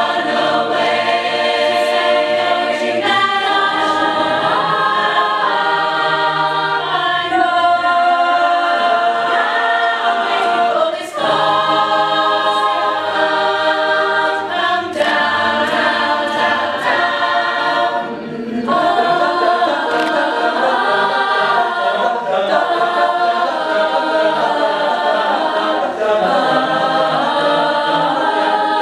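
A cappella vocal group singing a pop song cover, several voices holding close-harmony chords that change every second or two, with no instruments.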